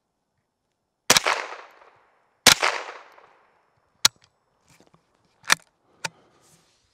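Two shots from a Thompson/Center T/C R22 semi-automatic .22 LR rifle, about a second and a half apart, each ringing out afterwards. A few sharp clicks follow with no ringing, the sound of the action being worked while the rifle jams.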